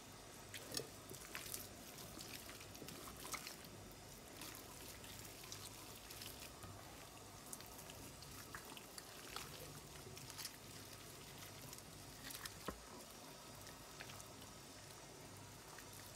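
Faint wet squelching and soft slaps of hands rubbing spice paste into a raw lamb shoulder, heard as scattered small clicks and smacks.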